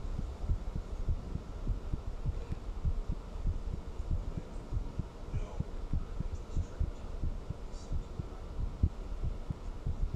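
Human heartbeat recorded up close: a steady run of low thumps repeating beat after beat.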